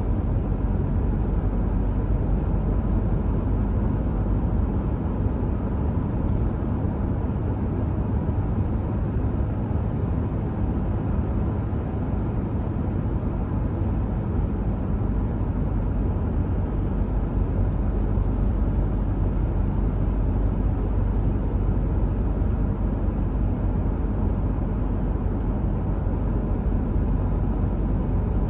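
A car driving along a road, with a steady low rumble of tyre and engine noise.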